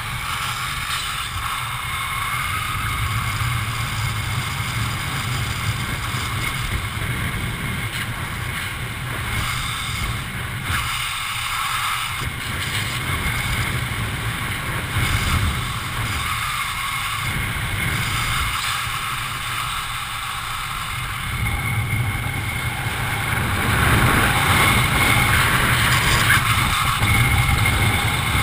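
Wind rushing over a helmet camera's microphone during parachute canopy flight, a steady rush that grows louder for the last few seconds.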